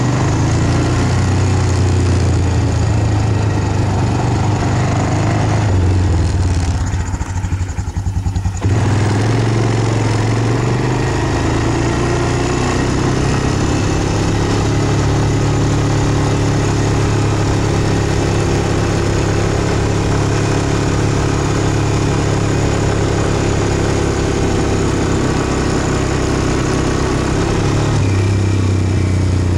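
An ATV engine running steadily as it is ridden, heard from on board. About six seconds in the throttle eases off and the engine note drops, then it picks back up about eight and a half seconds in.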